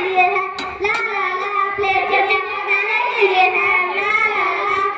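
Children singing a song, with two sharp clicks just under a second in.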